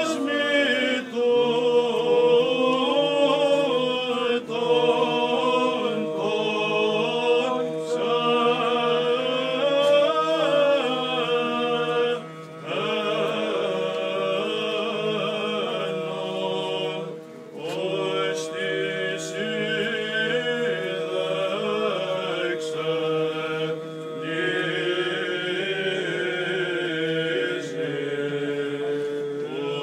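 A small group of male voices sings Byzantine chant, unaccompanied and mostly in unison, for the Orthodox Holy Friday Epitaphios service. The chant runs in long phrases, with short breaks for breath a few times.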